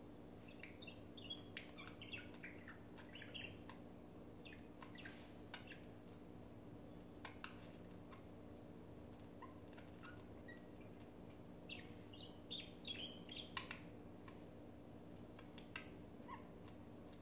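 Budgerigars chirping softly in short bursts of quick chirps, busiest in the first few seconds and again about three-quarters of the way through, over a steady low hum.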